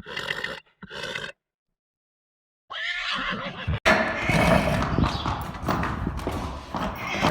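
Horse whinnying, starting about three seconds in after a brief silence.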